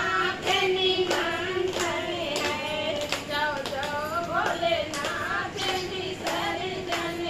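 Women singing a devotional song with steady hand clapping keeping time, about one and a half claps a second.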